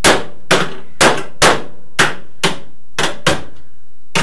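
Hammer blows on a sheet-metal car sill panel: about ten sharp metallic knocks at roughly two a second, each ringing briefly.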